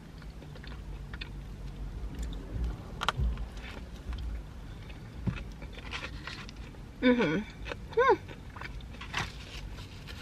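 Close-miked chewing of a mouthful of KFC fried chicken sandwich, with scattered small crunches and wet mouth clicks. Two short hummed sounds come about seven and eight seconds in.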